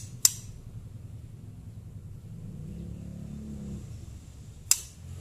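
White-rumped shama (murai batu) making its kretekan call: a sharp, dry click just after the start and another near the end, over a steady low rumble.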